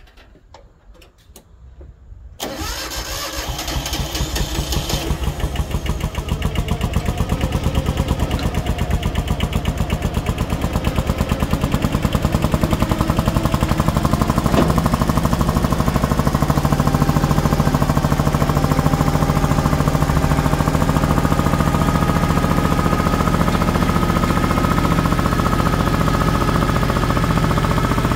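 A Daedong tractor's diesel engine cranks on the starter about two seconds in, catches and keeps running with an even, rapid beat. It starts and runs even though its number-three cylinder is faulty and its cracked block has been patched with a steel plate, after years with no oil change.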